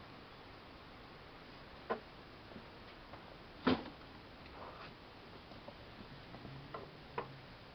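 A beagle puppy and a Siamese cat scuffling in play: a few scattered sharp taps and knocks over a faint steady hiss, the loudest a little under four seconds in.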